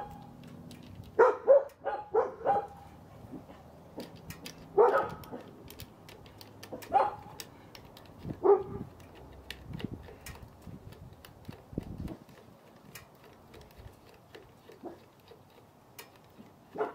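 A dog barking and yipping in short bursts: a quick run of them about a second in, then single ones a couple of seconds apart. Light metallic clicks of a screwdriver working the retaining-ring screw on a motorcycle lamp housing run underneath.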